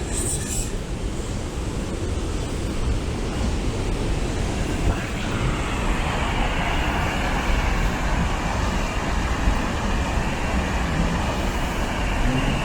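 Steady rushing of water spilling over a river dam's falls, a deep rumble with a brighter hiss joining about five seconds in.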